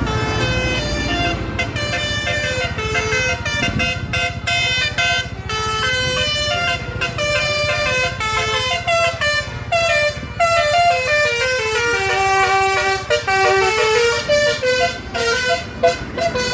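Bus 'telolet' horns, multi-tone musical air horns, playing quick melodic tunes, note after note stepping up and down in pitch, over the low rumble of traffic.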